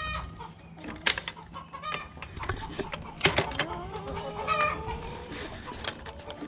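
Chickens clucking, with a longer drawn-out call in the second half. A few sharp knocks and clatters come from the wooden-framed wire-mesh door of the chicken run as someone steps inside.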